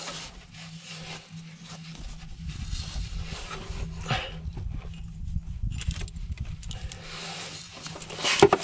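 Handling noise from a gloved hand working a chain-type oil filter wrench on a car's oil filter: scuffs, rustling and light knocks, with a sharper knock near the end. A low steady hum runs underneath.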